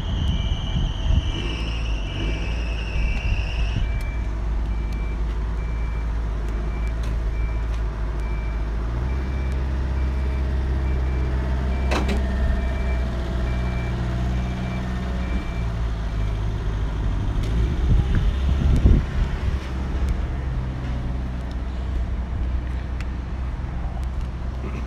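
Western Star 4800 truck's diesel engine idling steadily. A regular beeping, about two beeps a second, runs along with it and stops about two-thirds of the way through. A high whine stops about four seconds in.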